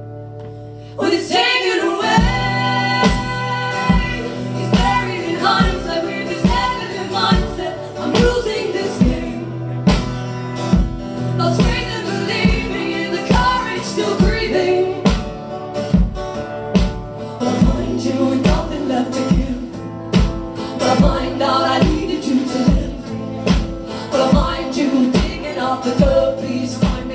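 Live performance of a folk-pop song: singing over guitars with a steady low beat about twice a second. A quiet held chord opens it, and the full song comes back in about a second in.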